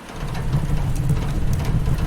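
Rain pattering on a windowpane with the small crackles of a wood fire, over a steady low rumble that swells up about a quarter second in.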